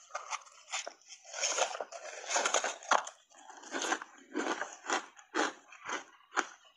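Refrozen shaved ice coated in matcha powder being bitten and chewed: a run of crunches, about two a second, with a denser stretch of crunching a second or two in.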